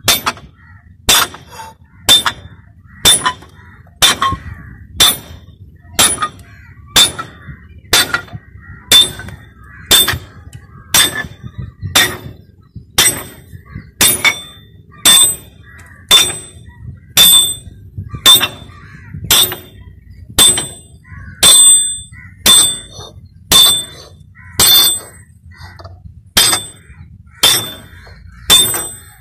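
Repeated metallic tapping as a hand-held bar strikes a round steel driving block sitting on a new cylinder liner, driving the liner into the bore of a four-cylinder diesel engine block until it seats flush. The blows are steady and even, about three every two seconds, each with a short ringing clang.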